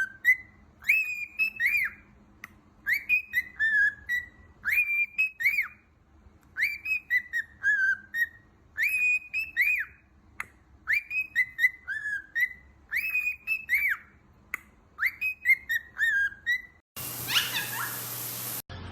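A bird singing the same short whistled phrase over and over, about once every two seconds, each phrase a quick run of clear rising-and-falling notes. Near the end the song gives way to a different, noisier sound.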